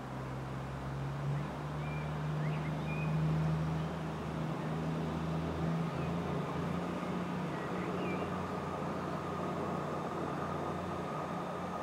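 Class 222 Meridian diesel-electric multiple unit, its underfloor Cummins diesel engines running with a steady low hum as it comes slowly into the platform. A steady higher whine joins about two-thirds of the way in.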